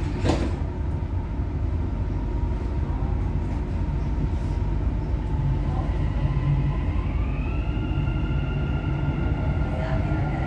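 Dubai Metro train pulling away from a station, heard from inside the front car: a steady low rumble with a short knock about a quarter second in. From about six and a half seconds a whine from the traction motors rises in pitch as the train speeds up.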